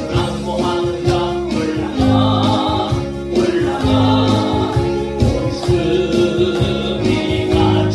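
Christian gospel song with a choir singing over instrumental accompaniment and a steady low beat.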